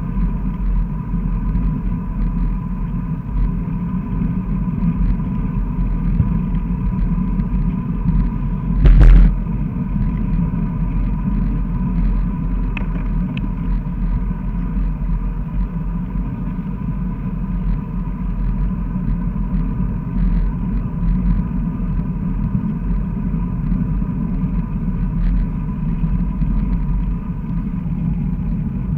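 Wind rush and road rumble picked up by a camera mounted on a road bicycle's handlebars while riding along a paved road: a steady low rumble under a faint steady high tone. One loud knock comes about nine seconds in.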